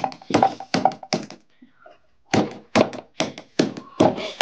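Raw meat being pounded on a wooden board: quick, steady thuds of about three blows a second, with a short break about halfway through.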